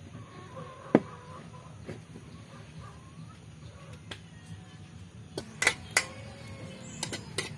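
A sharp knock about a second in, then, in the second half, a metal spatula striking and scraping a wok of raw pork pieces: a handful of sharp clinks in two short clusters.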